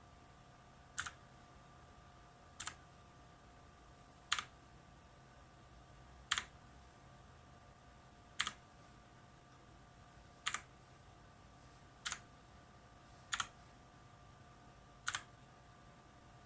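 Single keys pressed one at a time on a TECWARE Phantom mechanical keyboard, nine presses about every two seconds. Each press is a sharp click followed at once by a second click as the key returns.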